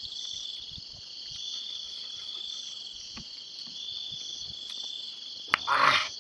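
Steady high-pitched chorus of crickets. About five and a half seconds in, a sharp click and then a brief, louder burst of noise.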